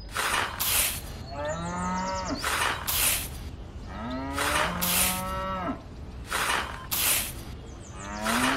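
Cow mooing: three long, drawn-out calls a couple of seconds apart, each rising and then dropping in pitch, with short bursts of hiss keeping a regular beat behind them.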